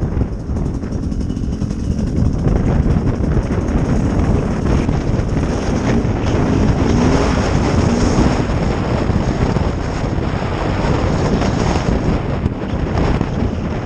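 Sherco SER 300 two-stroke enduro bike engine running as the bike is ridden, with wind buffeting the microphone.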